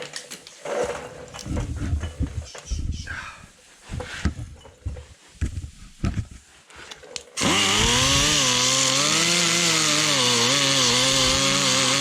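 Irregular handling knocks and clatter, then about seven seconds in an electric grinder starts and runs steadily, its pitch dipping and rising as it is pressed into a steel car body panel to take it back to bare metal.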